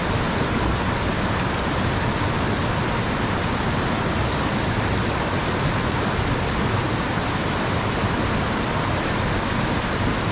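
Steady rushing of flowing water, an unbroken even noise with no change.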